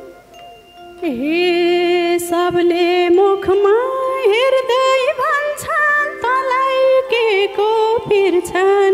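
Nepali dohori folk-band music. After a brief lull, a single sliding melodic line with vibrato comes in about a second in, over a few sparse drum beats and held lower notes.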